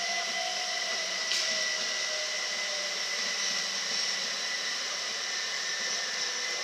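Thameslink Class 377 Electrostar electric multiple unit running through the platform: a steady rolling rush with a high electric whine and a lower whine slowly falling in pitch as the train slows to arrive. A short click about a second in.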